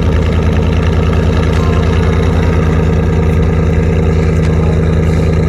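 V8 engine of a 2018 Chevy Silverado 1500 idling steadily through a straight-piped dual cat-back exhaust.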